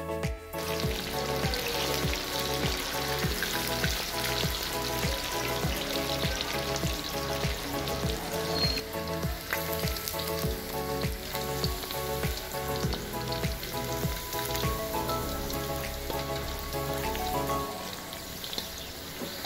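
Batter-coated chicken pieces deep-frying in a wok of hot oil, a steady bubbling sizzle, under background music with a regular beat.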